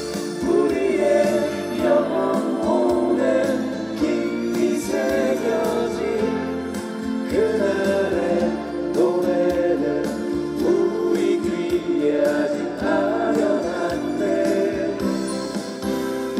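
Song with several voices singing together over a steady backing of chords.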